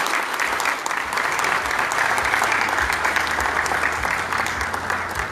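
Audience applause: many people clapping densely and steadily, easing off near the end.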